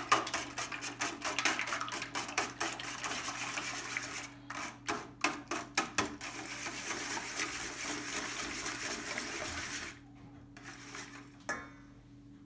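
Wire whisk beating eggs in a stainless steel bowl, rattling rapidly against the metal. The strokes thin out after about four seconds into a steadier swishing and stop about ten seconds in, followed by a single clink near the end as the whisk is set in the bowl.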